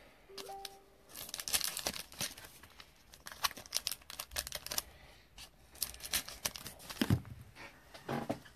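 Foil trading-card packs crinkling and rustling as they are handled and laid on a desk, with a thump about seven seconds in.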